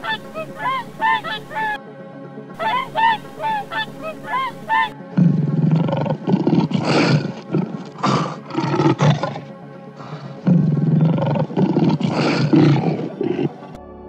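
Waterfowl honking in quick, repeated short calls. About five seconds in, a lion takes over, roaring in two rough bouts of several seconds each.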